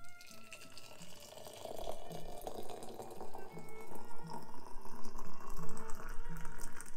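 A thin stream of water poured into a porcelain teapot over loose chamomile flowers, splashing steadily. The pour grows louder about two seconds in, and its pitch rises slowly as the pot fills.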